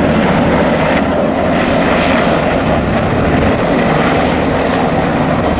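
UH-60 Black Hawk military helicopter flying past, its rotors and turbine engines making a loud, steady noise.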